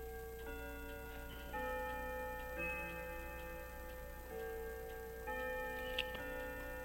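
Background music of sustained chords that change about once a second, with one sharp small click about six seconds in.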